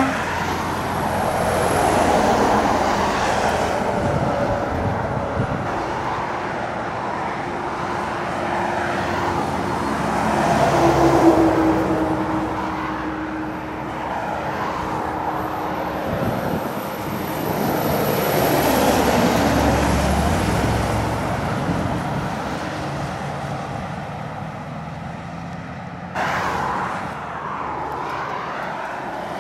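Diesel articulated lorries pulling up a long uphill grade under load, one after another, each swelling and fading as it passes, with cars and tyre noise in between. A steady engine drone stands out near the middle, and the sound changes abruptly near the end.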